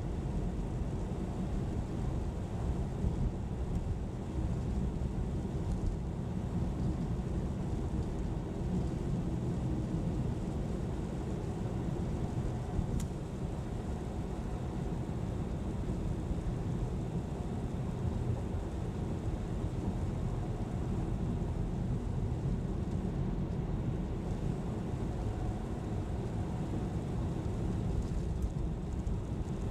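A car driving on a snowy highway: a steady low rumble of engine and tyre noise, with faint steady engine tones and no change in speed.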